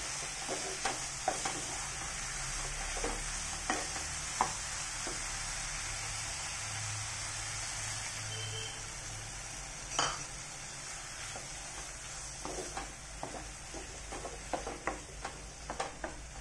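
Mushrooms frying and sizzling in masala in a non-stick kadai while a wooden spatula stirs, scraping and knocking against the pan. The stirring knocks thin out around the middle, with one louder knock about ten seconds in, and pick up again near the end.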